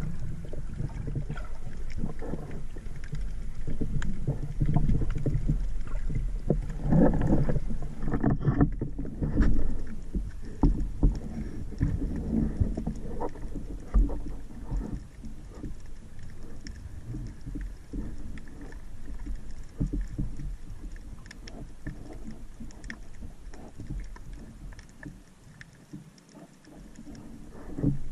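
Water sloshing and moving with a low rumble and scattered knocks and clicks, louder in the first half and dying down toward the end.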